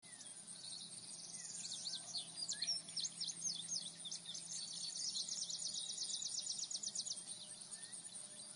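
Birds chirping and whistling, with a fast trill in the middle, over a steady high-pitched buzz like insects.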